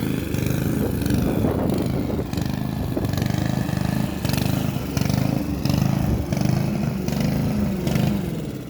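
Hyundai HY145V petrol lawn mower engine running, then fading away near the end as it dies: the fuel tank has run dry.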